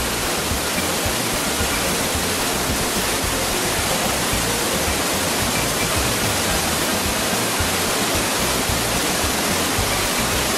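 Steady, loud rushing noise with no distinct events, its lowest part fluttering unevenly.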